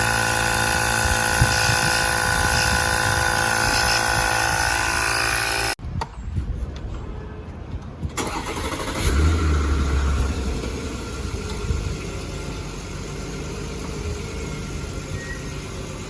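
A battery-powered tyre inflator pump runs steadily for about six seconds, then cuts off suddenly. Quieter, uneven low rumbling and handling noise follow.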